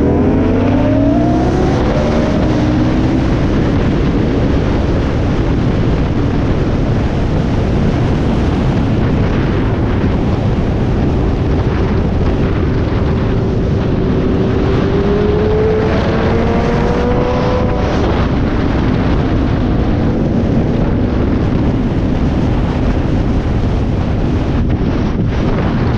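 Sport motorcycle engine running under way, heard from the rider's seat: the engine note rises near the start, holds steady, then climbs slowly again midway before dropping back. Heavy wind rush on the microphone runs underneath.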